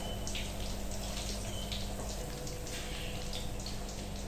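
Hot ghee sizzling in a karahi, with scattered crackles, as pieces of fried meat are lifted out with a ladle.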